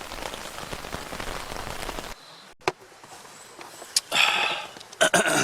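Rain falling steadily on a tent, cutting off abruptly about two seconds in. Then a few sharp clicks and two short rustling handling noises.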